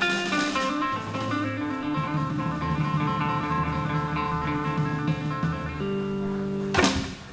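Guitar music playing the closing instrumental bars of a blues song. It ends with a sharp final hit just before the end.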